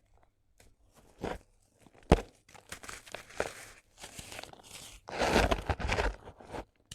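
Dried sand-cement crumbling and crunching, with gritty crackles. A sharp snap comes about two seconds in, and a denser run of crumbling follows from about five to six and a half seconds in.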